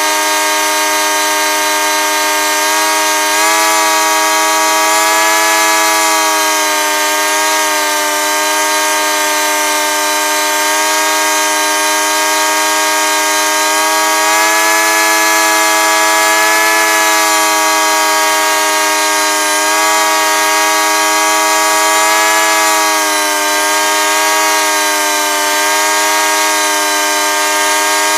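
Paramotor engine and propeller running under power in flight, a steady loud drone whose pitch drifts slightly up and down.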